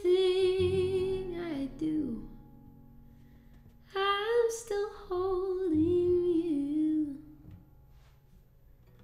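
A woman singing two long, wordless phrases of held notes over an acoustic guitar, with a pause of about two seconds between them. It goes quieter for the last second or so.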